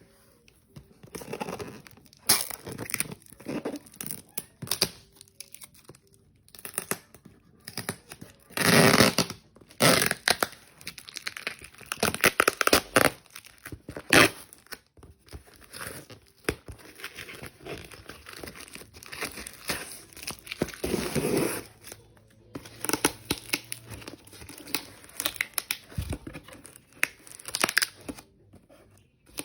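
Plastic packaging crinkling and tearing in irregular bursts as it is handled.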